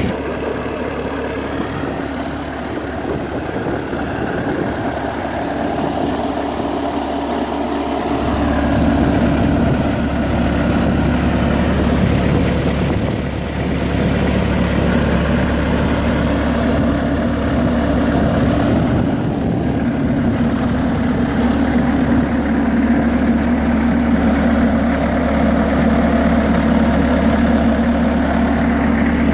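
Bobcat 763 skid steer's diesel engine running steadily, growing louder with a stronger low rumble about eight seconds in.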